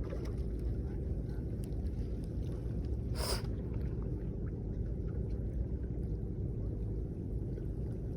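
Steady low rumble of wind and water at the water's edge, with one short hiss about three seconds in.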